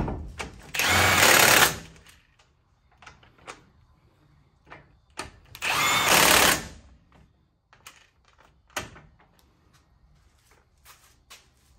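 Cordless impact wrench hammering in two bursts of about a second each, a few seconds apart, driving the brake caliper bolts home. Small metallic clicks and knocks of tool and parts handling between and after.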